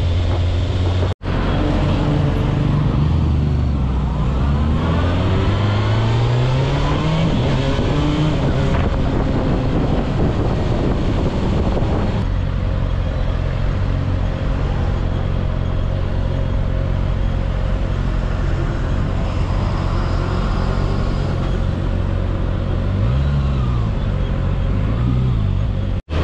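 Kawasaki Ninja ZX-6R's inline-four engine heard from the rider's seat, pulling up through the revs several times as it accelerates, then running steadily at a cruise. Near the end there are two short blips of the throttle, each rising and falling.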